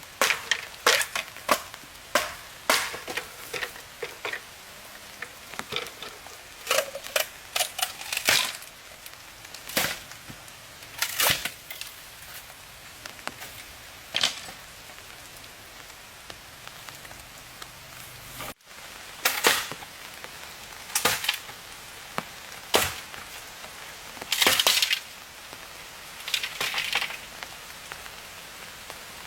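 Irregular sharp cracks and knocks of wood being worked, one at a time or in quick clusters, with short gaps between.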